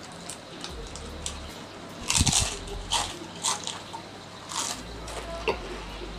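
Crisp black ghost-pepper potato chips being bitten and chewed close to the microphone: a series of sharp crunches, loudest about two seconds in.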